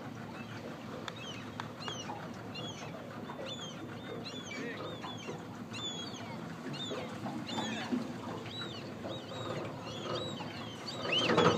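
Birds calling: many short, high, chirping and squealing calls one after another, over a steady background noise. A louder, fuller sound comes just before the end.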